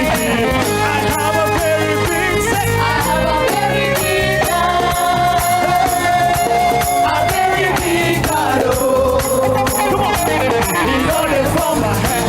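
Live church worship band playing an upbeat praise song, with percussion keeping a steady, even beat.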